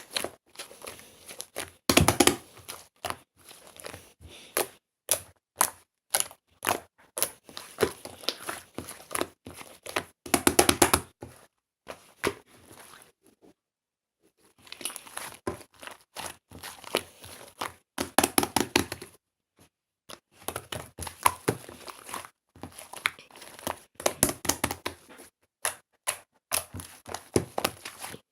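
Slime being squeezed and poked by hand, making rapid sticky clicks, pops and crackles. There are denser bursts of popping about two seconds in, around the middle, and again about two-thirds of the way through, with a short pause just before the middle.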